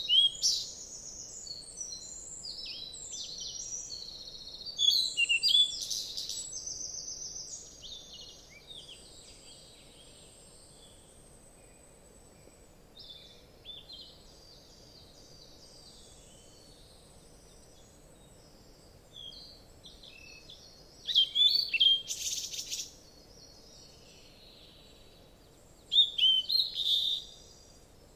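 Birds chirping and calling in short, quick high notes, busy for the first several seconds, then sparse, with two loud flurries of chirps about two-thirds of the way in and near the end.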